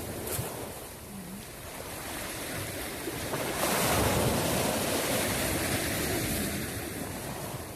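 Sea surf washing, swelling louder about three and a half seconds in and then easing off.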